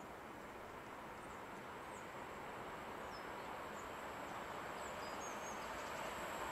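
Newag Impuls 36WEa electric multiple unit approaching from a distance: a soft rumble of wheels on the rails that grows steadily louder. A few faint, high, short bird chirps are heard over it.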